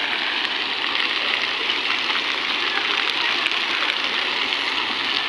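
Outdoor fountain water splashing steadily, with arcing jets falling into a long cascading channel, heard as an unbroken rushing noise.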